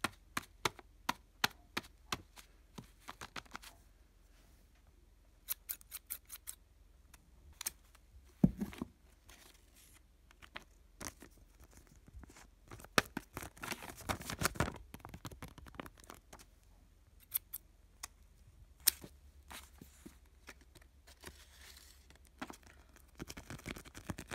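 Scissors snipping open a paper envelope in a run of short, sharp snips, with paper rustling as the bag is handled and opened.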